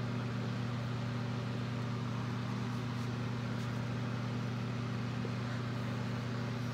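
Steady low electrical hum, unchanging, with no other events.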